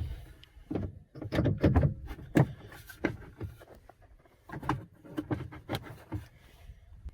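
Hard plastic and metal parts of an aftermarket UTV storage box scraping and clicking as a piece is slid and pushed into its mounting by hand, with a few sharp knocks.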